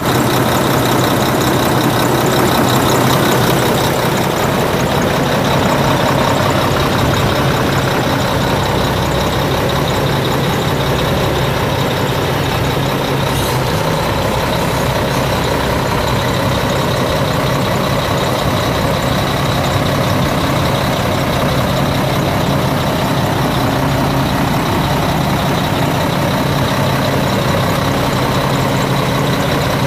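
Mack E7 12.0-litre inline-six turbo diesel in a Mack CX613 truck idling steadily, with a high hiss over the first few seconds.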